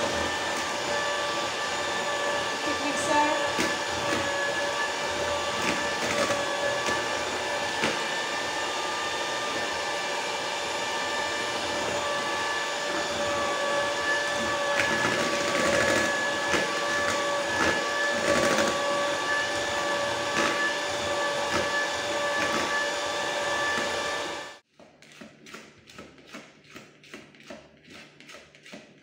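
Philips electric hand mixer running steadily, its beaters whirring through a bowl of creamed butter, sugar and eggs. It switches off abruptly about 25 seconds in, followed by faint scraping and tapping of a plastic spatula around the bowl.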